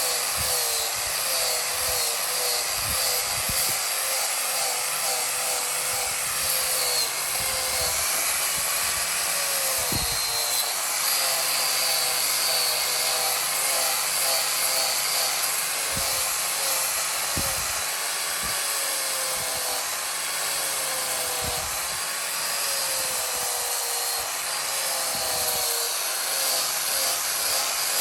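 Handheld electric power tool running continuously against wood, its whine dipping and recovering as the load changes, with a few light knocks.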